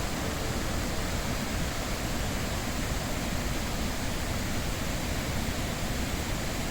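Iguazu Falls, water cascading over the falls as a steady, even rushing noise.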